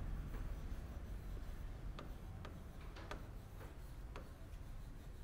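Stylus ticking and tapping against the screen of an interactive whiteboard during handwriting: faint, irregular clicks, roughly one or two a second, over a steady low room hum.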